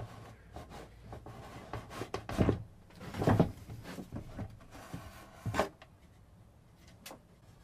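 The plastic rear housing of a Philips CM8833-II CRT monitor is being slid off its chassis, giving a few scrapes and knocks of plastic. The loudest comes about three seconds in, and a sharp click follows near the end.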